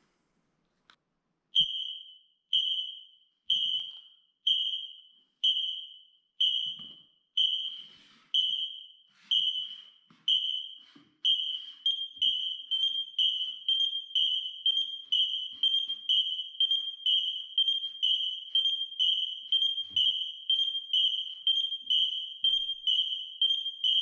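A bank of X-Sense wireless interlinked smoke alarms sounding their test beeps together, set off from one test button to check that the interlink works. A single high beep about once a second at first, then from about 11 s in the beeps come roughly twice as fast and overlap as more alarms join slightly out of step.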